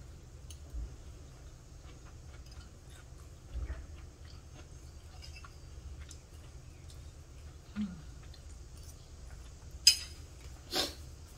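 Close-up chewing of a mouthful of cooked bamboo shoots, soft and quiet with small scattered mouth ticks, and two sharp clicks near the end.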